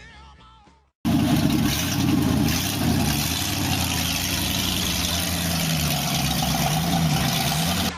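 Chevy 350 small-block V8 with headers, running loud, its pitch sagging and then rising again over a heavy rushing hiss. It starts suddenly about a second in and cuts off abruptly near the end.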